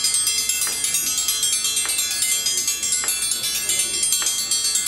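Background music: a bright, tinkling melody with a steady beat a little over once a second.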